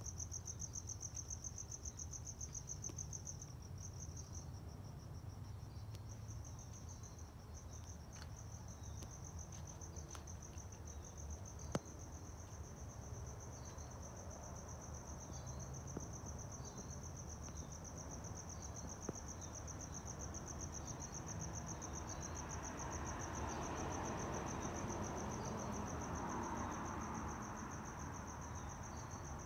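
Crickets chirping at night: a steady, high, finely pulsing trill throughout, with shorter chirps repeating about once a second over it. A soft rushing swell rises and fades near the end, and a single sharp click comes about a third of the way in.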